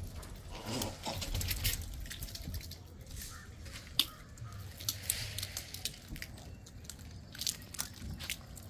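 Sparse sharp clicks and crunches from grey langurs picking up and eating food scattered on a concrete terrace, with the strongest click about four seconds in. A low rumble lies underneath, louder near the start.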